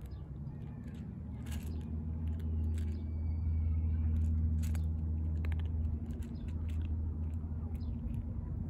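A steady low engine hum, growing louder a few seconds in, with short crisp crunches of a cat chewing dry kibble from a metal bowl.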